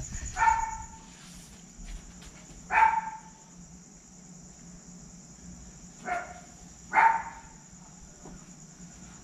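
A dog barking four times, short single barks a few seconds apart, over the steady high chirring of crickets.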